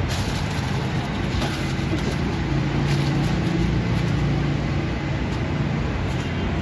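Steady low rumble of street traffic noise, with an engine-like hum that swells for a couple of seconds in the middle.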